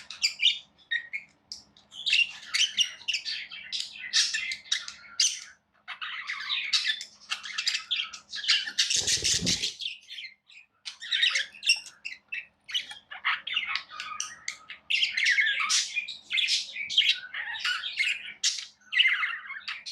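Small pet parrots chirping and chattering in quick, high-pitched runs broken by squawks, with a brief low thump about halfway through.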